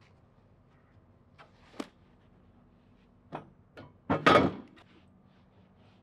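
Wooden boards and a sawmill slab knocking as they are handled and set down on a wooden jig: a few scattered knocks, then a loud cluster of thuds about four seconds in.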